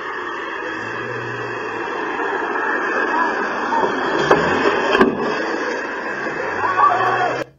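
Home security camera audio: a steady hiss with a car passing, and two sharp knocks about four and five seconds in as a person is thrown out of the moving car. The sound cuts off abruptly near the end.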